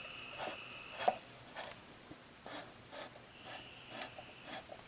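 Faint clicks and knocks of metal parts as the freshly greased adjustment mechanism of an old Sears Craftsman jointer is worked by hand, with a faint thin high tone at the start and again near the end.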